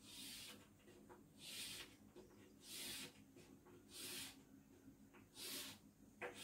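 Chalk drawing long straight lines on a chalkboard: five faint strokes, roughly one every second and a half.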